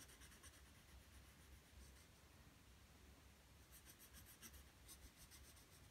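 Faint scratching of a graphite pencil on paper in short, quick hatching strokes as dark tone is shaded in, with a quicker run of strokes about four seconds in.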